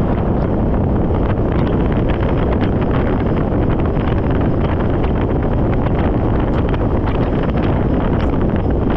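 Strong wind buffeting a roof-mounted camera's microphone: a steady, loud rush with scattered faint ticks.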